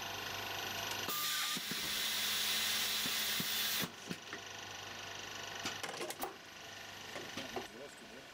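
Print-and-apply labelling machine running with a low steady hum. About a second in, a loud steady hiss starts, lasts about three seconds and cuts off suddenly, followed by a string of sharp mechanical clicks.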